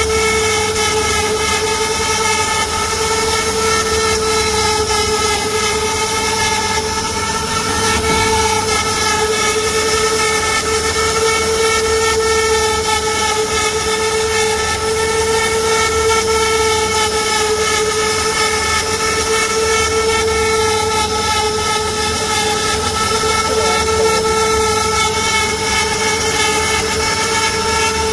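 CNC router spindle whining steadily at high speed as its bit carves a relief pattern into a wooden panel, with a constant hiss over the whine.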